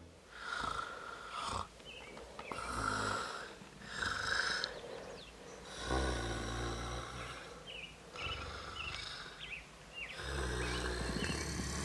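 A person snoring in their sleep, one snore with each breath, about every two seconds.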